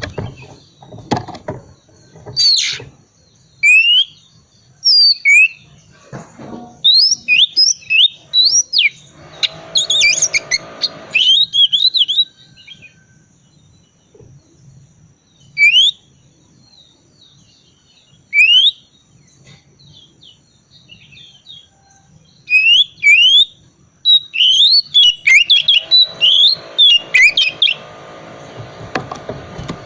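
Oriental magpie-robin (kacer) singing in short phrases of clear, quickly rising and falling whistles with soft twittering. Two longer stretches of denser, buzzier chatter come about ten and twenty-five seconds in, with pauses between phrases.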